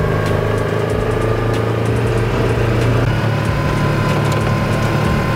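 Side-by-side UTV driving along a dirt track, its engine running steadily, with scattered small clicks and rattles.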